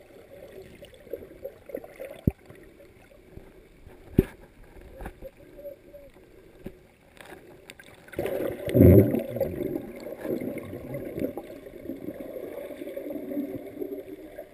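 Muffled underwater sound heard through a GoPro's waterproof dive housing: faint water movement with a few sharp clicks, then a louder rush of gurgling, bubbling water from about eight seconds in.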